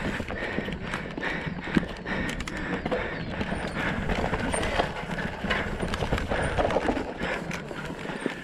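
Mountain bike ridden fast down a rough dirt forest trail: a continuous rush of knobbly tyres over dirt and roots, broken by many sharp knocks and rattles from the bike over bumps.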